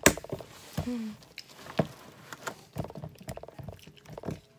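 Homemade detergent-activated slime being poked and squeezed in a cup: a run of sticky clicks and wet pops, the loudest right at the start. The slime is still a little short of its final consistency.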